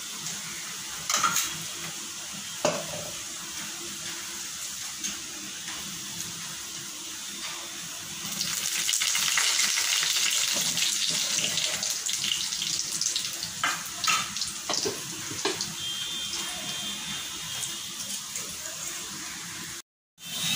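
Dal vadas deep-frying in hot oil in a steel kadhai, a steady sizzle that grows louder for a few seconds about eight seconds in. A few light clinks of steel utensils come through it.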